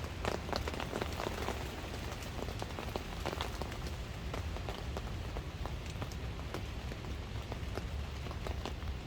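Rain falling, with many separate sharp drop strikes over a steady hiss; the strikes come thickest in the first second and a half.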